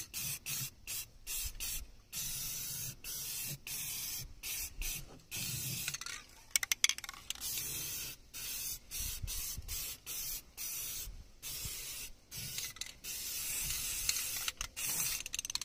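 Aerosol spray can of Rust-Oleum high-temperature primer hissing in many short bursts with brief pauses between them, as primer is sprayed onto the bare metal of a wood stove.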